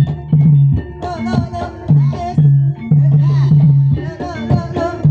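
Ebeg dance accompaniment: a Javanese gamelan-style ensemble with sharp kendang drum strokes over loud, deep held notes, and a voice singing in wavering phrases from about a second in.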